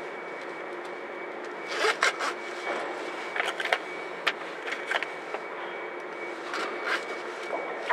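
Steady mechanical drone aboard the car ferry Kuniga, with a thin high whine held throughout. Irregular clicks, knocks and scrapes break in over it, the loudest about two seconds in.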